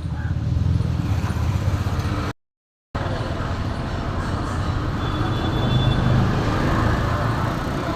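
Steady rumbling vehicle noise, cutting out completely for about half a second a little over two seconds in.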